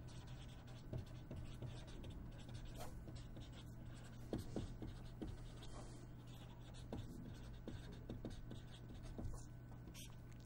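Felt-tip marker pen writing on paper: faint, short, irregular strokes as letters are drawn, over a low steady hum.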